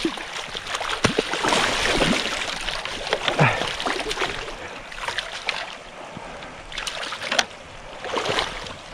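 Water splashing and sloshing as a big coho salmon thrashes in the shallows of a stream, over the stream's steady rush. The splashing comes in uneven surges that swell and fade.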